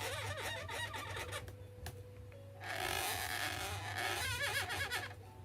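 Latex balloon squeaking and rubbing as it is handled and drawn on with a marker, in short wavering squeaks near the start and again about four seconds in.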